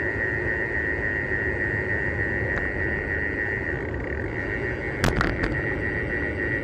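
Wind and road rumble on a bike-mounted action camera while riding a road bike, with a steady high whine underneath. A few sharp knocks come about five seconds in, like the bike jolting over a bump.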